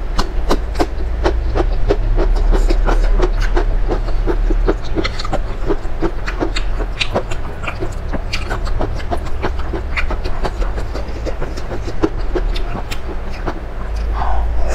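Close-miked eating: wet chewing and lip-smacking clicks, many of them, over a steady low hum. Near the end comes one loud slurp of noodles.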